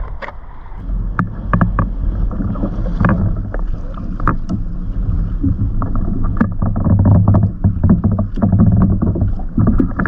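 Wind rumbling on the microphone and chop slapping against a fishing kayak's hull, with frequent sharp knocks and clicks as rods and gear are handled on the kayak.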